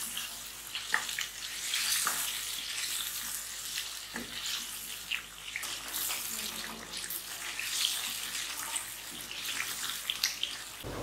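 Chicken in a creamy green masala gravy sizzling in a pan while a wooden spatula stirs it, with a steady frying hiss and occasional sharp knocks and scrapes of the spatula against the pan.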